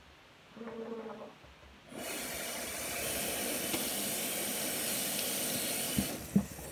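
Bathroom sink tap running steadily into the basin for about four seconds, then stopping, with a couple of sharp knocks as it ends. A short voice sound comes before the water starts.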